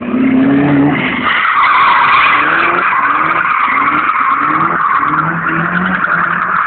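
A drift car sliding round a coned course, its tyres squealing steadily from about a second in. Underneath, the engine revs rise and fall in short pulses, about two a second.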